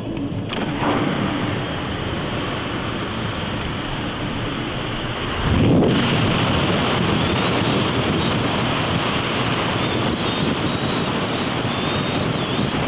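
Wind rushing over the microphone of a moving vehicle, mixed with road noise, as a steady noise that grows louder about six seconds in.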